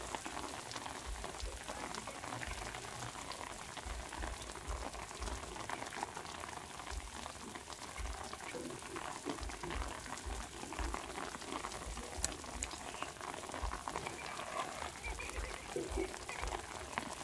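Light rain falling in a steady fine patter, with intermittent low rumbles.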